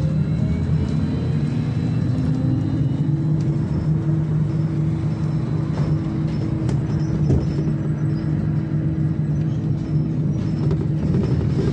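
Inside a VMZ-5298.01 trolleybus under way: the electric traction drive's whine climbs in pitch for the first few seconds as the trolleybus gathers speed, then holds a steady hum over the rumble of the body and tyres, with a few light knocks.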